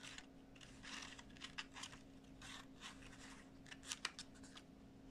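Faint rustling of a sheet of paper being handled, in several short rustles, with a few sharp clicks about four seconds in.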